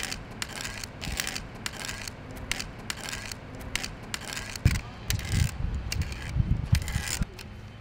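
A white cane's tip tapping and scraping over paving stones in a quick, irregular rhythm as its user walks. From about halfway, low thuds join in.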